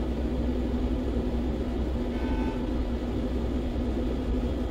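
Steady low hum and rumble of background machine noise, with a constant low tone.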